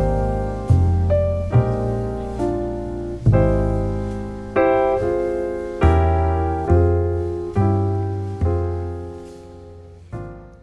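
Background piano music: slow chords over bass notes, a new chord struck about every second and left to fade, dying away near the end.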